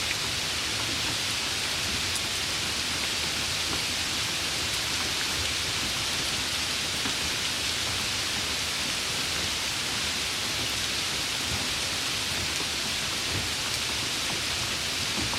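Light rain falling steadily: an even hiss of rain with faint scattered drop ticks.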